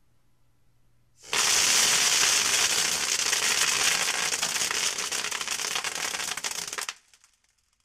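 Soda-bottle airsoft machine gun run off a backpack-mounted compressed-air tank firing a continuous burst: a loud rush of air packed with a rapid crackle of pellets. It starts about a second in, runs for about five and a half seconds and cuts off suddenly.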